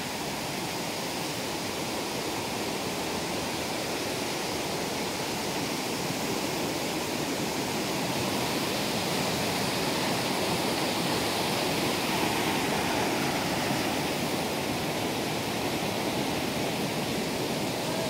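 Waterfall and cascading creek water rushing steadily, growing slowly louder over the first several seconds.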